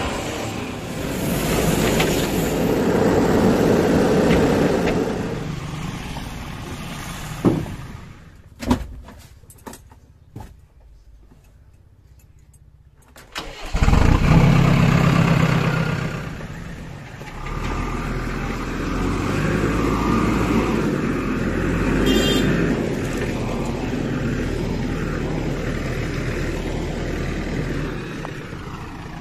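Diesel engine of a JCB 3DX backhoe loader running. About halfway through, after a quieter stretch with a few sharp knocks, there is a sudden loud burst as the engine starts, and it then settles into a steady run.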